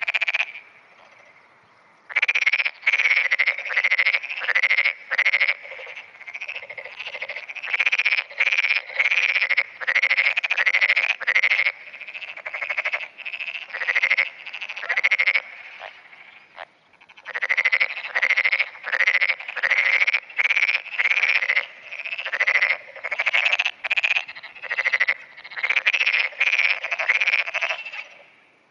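Black-spotted pond frog (tonosama frog) calling: a long run of short, rapid croaking notes, about two a second, starting about two seconds in, with a brief pause around the middle.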